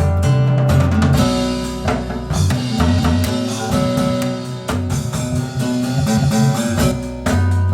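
Recorded music with guitar, bass and drum kit, played back over Magico S3 loudspeakers.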